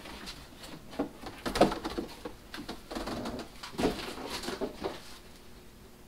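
Packaging rustling and knocking as an RC buggy is lifted out of its box and handled, in irregular bursts that are loudest about one and a half seconds in and again near four seconds, then settling.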